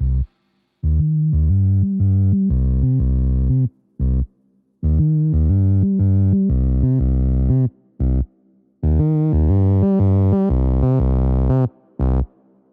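Background music with a synthesizer and bass line. It cuts off to silence and starts again several times, in stops of about a second.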